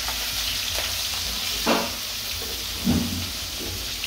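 Breaded shrimp sizzling as they fry in hot oil in a skillet, a steady hiss. Two brief louder sounds break in around the middle.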